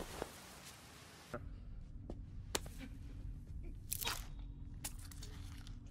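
Film fight sound effects: a few sharp crunching blows over a low steady room hum, the loudest about two and a half and four seconds in.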